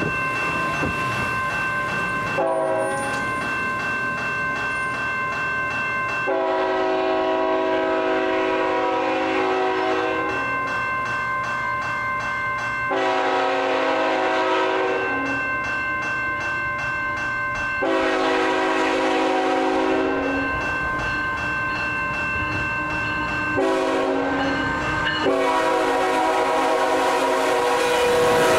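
CN 3224's Nathan K5HL five-chime air horn sounding about five separate blasts, each two to four seconds long, as the train approaches the crossing. A railway crossing bell rings steadily underneath.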